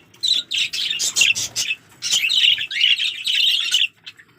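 A flock of budgerigars chirping and warbling in quick, high, scratchy notes. A broken run of calls is followed by a brief lull about halfway through, then a busy stretch of chatter that stops shortly before the end.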